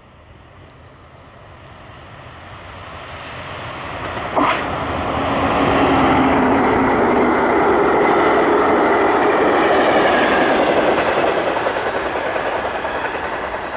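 An Amtrak Cascades passenger train, diesel locomotive and coaches, passing close by on the main line. It grows steadily louder as it approaches, gives one sharp knock about four seconds in as the locomotive comes level, runs as a steady rumble of passing wheels and cars, then eases off toward the end.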